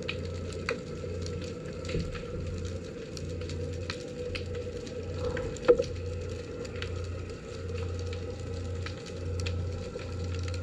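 Underwater ambient sound: scattered sharp clicks over a low hum that swells and fades about once a second, with one louder click a little before the middle.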